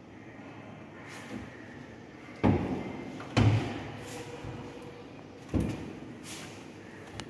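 Wooden kitchen cabinet doors under the sink being handled and knocked shut: two sharp knocks about a second apart, then a third about two seconds later.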